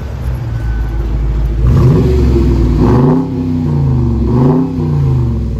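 Dodge Challenger R/T's 5.7-litre Hemi V8 idling, then revved in quick blips, each rising and falling, through its stock mufflers.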